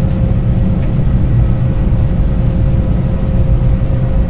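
Airliner cabin noise as the plane taxis after landing: a steady low rumble with a constant mid-pitched hum over it.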